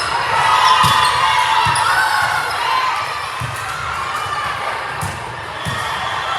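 Volleyballs thudding on a gym floor, about one hit every second or so, with sneakers squeaking and voices from players and spectators.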